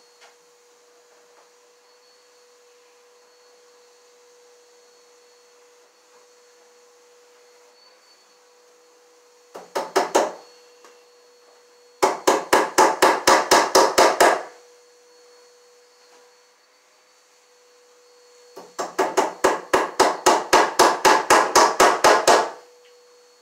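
Tool knocking at an electrical box on a wooden wall stud: rapid, evenly spaced strikes, about six a second. They come in three bursts: a short one about ten seconds in, then two longer runs of several seconds each.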